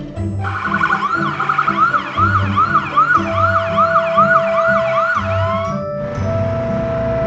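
Emergency vehicle siren wailing up and down in quick sweeps, about two a second, over background music. The siren stops about six seconds in.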